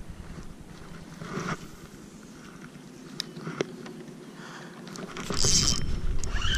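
Wind rumbling on the camera's microphone, with a few light clicks. From about five seconds in it gets louder, with rubbing and handling noise as a hand reaches for and grips the camera.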